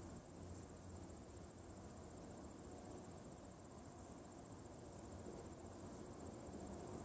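Faint, steady, high-pitched pulsing trill of an insect, over a low background hum.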